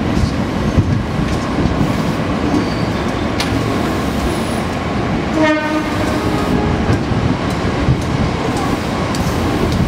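Ex-Tokyo Metro 05 series electric commuter train passing close by, its wheels rumbling steadily over the rails with a few sharp clicks at the rail joints. A short horn blast sounds about halfway through.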